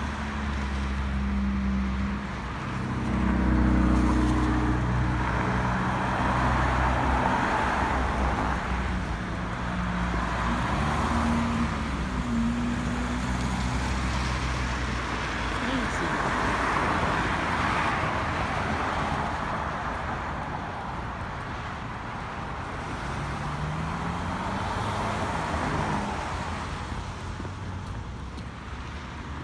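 Road traffic on a busy multi-lane street: car engines humming and tyre noise swelling and fading as vehicles pass, several times over. Now and then an engine's pitch rises as a vehicle pulls away.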